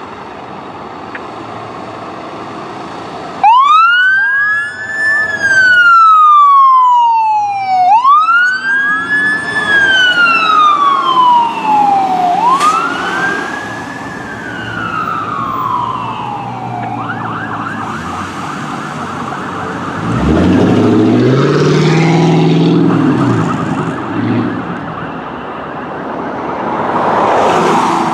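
Fire engine siren sounding a wail: three cycles, each a quick climb in pitch and a slower fall, starting a few seconds in, then a brief fast yelp. A loud low engine rumble follows about twenty seconds in.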